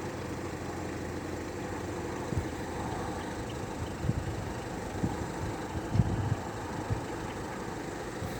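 A diesel engine idling steadily, with a few short low thumps spread through it.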